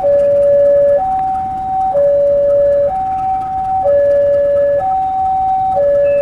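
Electronic two-tone warning alarm of a railway level crossing, loud, switching evenly between a lower and a higher tone about once a second.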